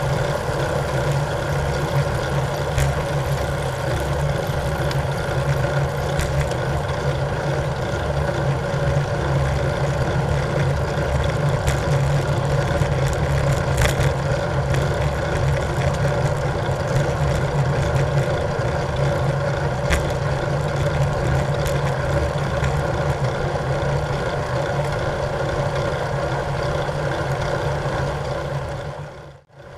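Steady rumbling wind and road noise on a bicycle-mounted camera while riding, with a few faint clicks. It cuts out briefly near the end.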